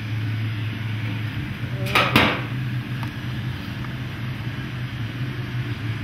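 Two sharp metallic clinks close together about two seconds in, as the fuel gauge sending unit's float is set down against the steel gas tank at its sender opening, over a steady low hum.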